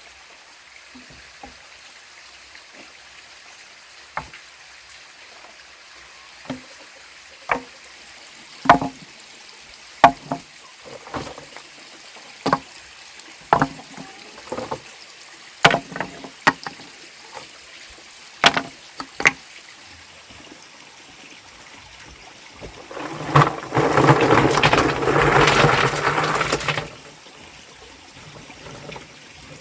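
Irregular sharp knocks and scrapes, about fifteen of them, then a loud pour of wet material lasting about three seconds near the end.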